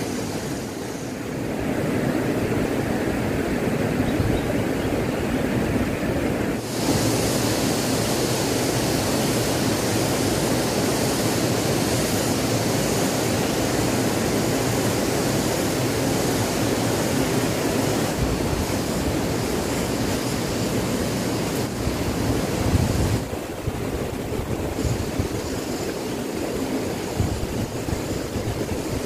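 Steady rush of flowing river water mixed with wind on the microphone. The noise changes character abruptly about seven seconds in and again near 23 seconds.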